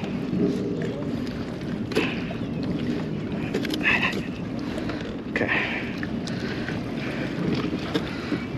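Water lapping against a plastic kayak's hull with wind on the microphone, broken by a few short knocks and clicks as gear is handled in the cockpit.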